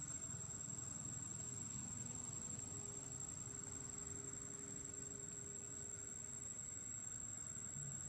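Insects, such as crickets, trilling in one steady high-pitched tone, over a faint low background hum.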